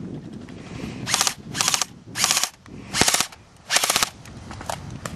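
Airsoft rifle firing five short full-auto bursts of rapid mechanical clicks, then a couple of fainter single shots near the end.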